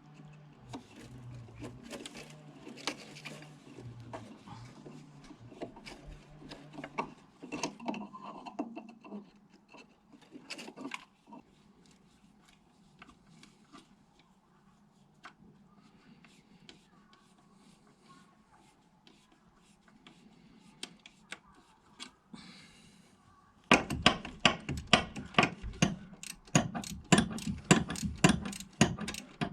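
Hand tools clinking and scraping against metal, then near the end a socket ratchet clicking in a fast, even run as a bolt is turned.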